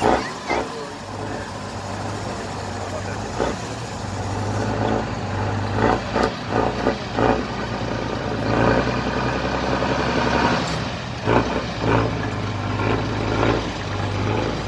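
Diesel engine of a Tatra 6x6 trial truck running steadily under load as the truck crawls up a steep dirt mound. Several sharp knocks stand out, a cluster about six to seven seconds in and more around eleven to twelve seconds.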